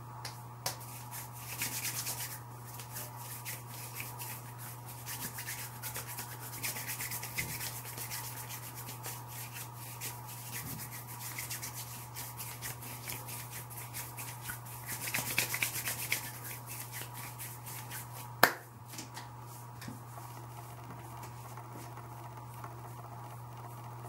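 Hands rubbing and handling things off-camera: soft brushing and rustling with small ticks, louder in two stretches near the start and about fifteen seconds in, and one sharp click about eighteen seconds in. A steady low hum runs underneath.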